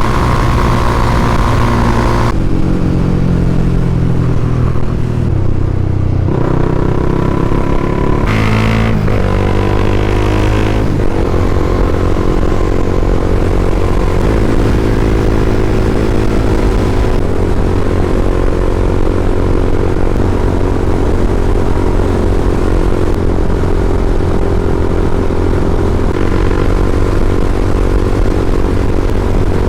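Honda CBR300R's single-cylinder engine running on the move. Its pitch steps and rises through several gear changes in the first ten seconds or so, then holds steady at cruising speed.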